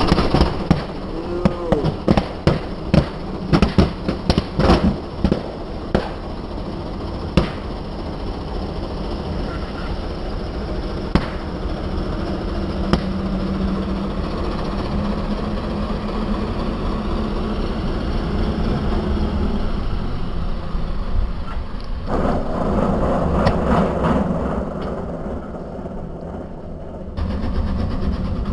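Balloons bursting under tractor tyres, a quick run of loud pops in the first several seconds, over the tractor's engine running. The engine then runs on steadily as the tractor drives away, its sound changing abruptly about 22 and 27 seconds in.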